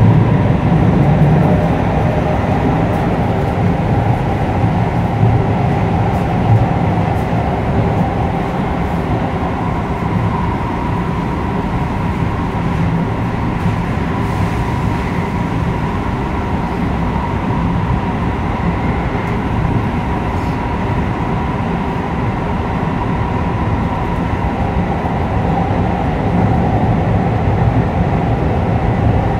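Keio 8000 series electric train running at speed, its Hitachi GTO-VVVF inverter and traction motors giving a steady whine over the rumble of wheels on track.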